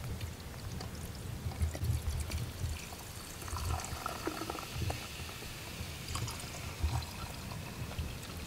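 Canoe paddling on calm water: water splashing softly and trickling off the paddle blade with each stroke, over a low pulsing rumble.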